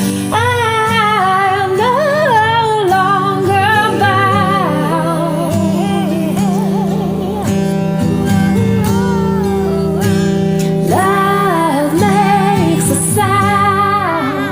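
Worship song: a woman sings held, wavering notes with vibrato over sustained acoustic guitar chords, with a gap in the vocal in the middle where only the accompaniment plays.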